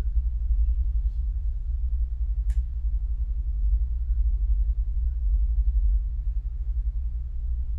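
A steady low background rumble, with one faint short click about two and a half seconds in.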